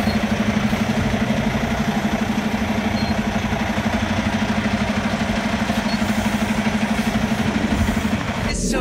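Semi-truck diesel engine idling with a steady, even throb, cutting off shortly before the end.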